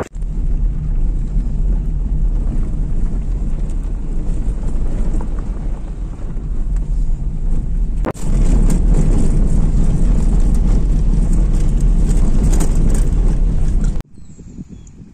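Wind buffeting the microphone: a steady low rumble. It breaks off briefly about halfway through, comes back louder, and stops abruptly near the end.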